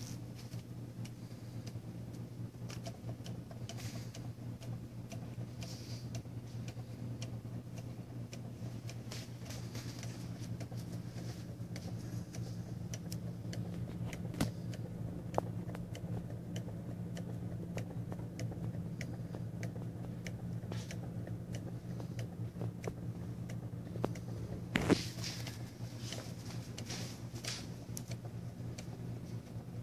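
Homemade tin-can low-temperature-difference Stirling engine running off ice-cold scallops, giving faint, uneven ticks from its wire linkage and flywheel over a steady low hum. A brief louder knock and rustle comes about 25 seconds in.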